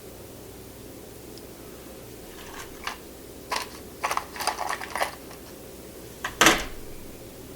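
A run of short clicks and rattles, then one louder thump about six and a half seconds in, over a steady low hum.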